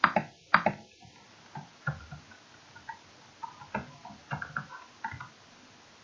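Computer keyboard and mouse clicks while code is edited: two sharp clicks at the start, then a run of softer keystroke taps.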